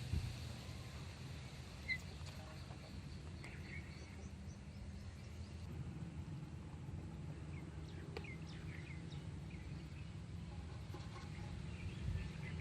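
Outdoor ambience: a steady low hum, with a few short, faint bird chirps scattered through it.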